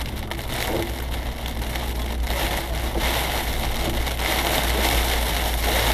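Heavy rain pelting the car's windscreen and roof, heard from inside the cabin and growing louder about three seconds in, over the steady low rumble of the car driving.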